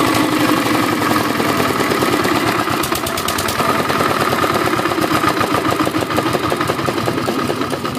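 Single-cylinder water-cooled engine of a 2.5 kVA generator set running steadily, a fast, even chugging of its firing strokes.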